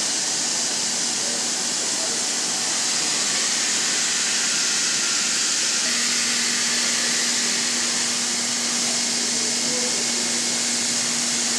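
Steady machinery hiss on a battery-cell production line, like blowing air, with a faint low steady hum joining about halfway through.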